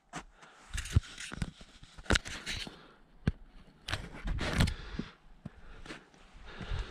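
A hiker's footsteps on rock and loose stones, irregular scraping and crunching steps with sharp knocks, the loudest stretch about four to five seconds in.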